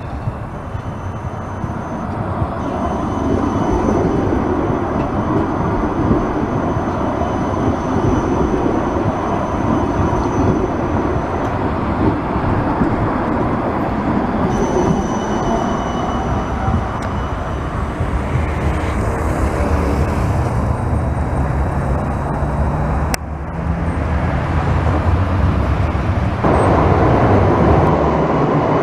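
Siemens Combino low-floor tram pulling in and rolling past close by: steel wheels running on the rails under a thin, steady high whine, then a humming electric motor tone. Near the end, after a cut, a louder rumble of a tram approaching in a tiled underground stop.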